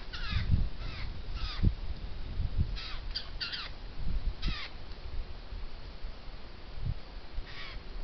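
Eurasian jays giving harsh, rasping screech calls: about eight short screeches at irregular intervals, several close together around the middle and one near the end.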